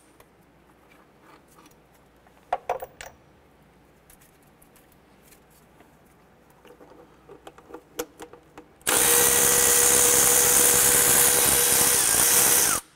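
A few light tool clicks, then near the end a cordless electric ratchet runs steadily for about four seconds, spinning out a 12 mm throttle body bolt.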